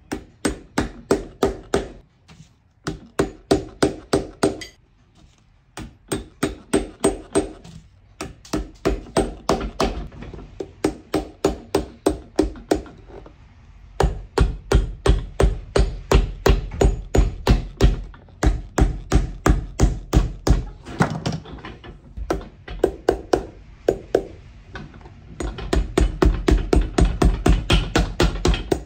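A steel hammer strikes the iron cleats on a leather boot sole set on a metal last. The blows come quickly, about four a second, in runs with short pauses between, and are heavier from about halfway through. The hammering sets the cleats' pins and flattens the cleats down against the sole.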